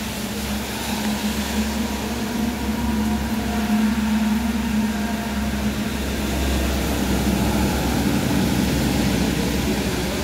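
A heavy engine running steadily with a low hum, over the hiss of rain falling.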